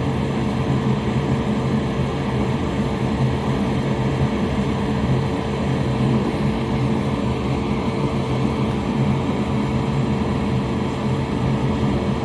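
Solder fume extractor fan running steadily: a constant whir with a low hum.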